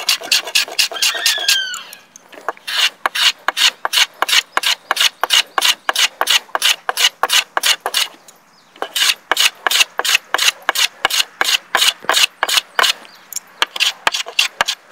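Block plane taking quick, short strokes across the edge of a red cedar board to chamfer it: a rapid run of light rasping shaves, about three a second, with a brief pause a little past the middle.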